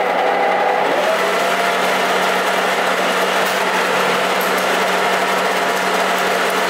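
Metal lathe running with its three-jaw chuck spinning at speed: a steady hum of motor and headstock gears whose main tone settles slightly lower about a second in.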